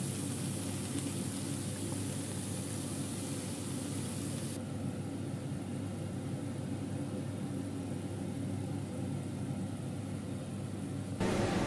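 Chicken hearts, carrot and onion frying in a non-stick pan: a sizzle over a steady low hum. The high sizzle drops away suddenly about four and a half seconds in, leaving mostly the hum.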